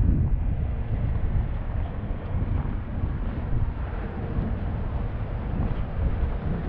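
Wind buffeting the microphone outdoors in a snowstorm: an uneven low rumble that rises and falls in gusts, with no distinct events.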